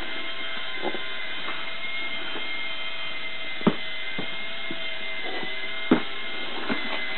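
A steady mechanical drone with a thin, constant whine, and two sharp knocks as a cardboard toy box is handled, about three and a half and six seconds in.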